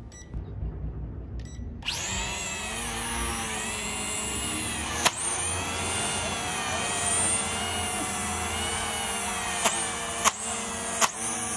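Small quadcopter drone's motors spin up about two seconds in and run with a high, wavering whine as it strains against a tethered bundle of dry spaghetti that it cannot lift. A few sharp clicks come near the end as the drone tips over.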